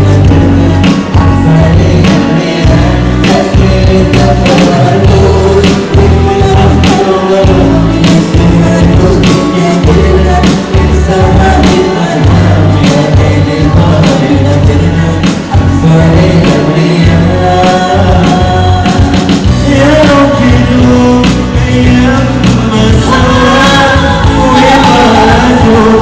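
Loud music with a voice singing over a band and a steady percussion beat.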